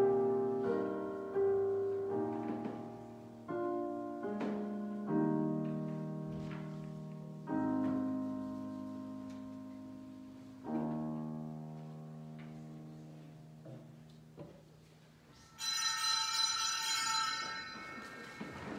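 Piano playing slow chords, each struck and left to fade before the next. Near the end the piano stops and a bright ringing sound lasts about two seconds.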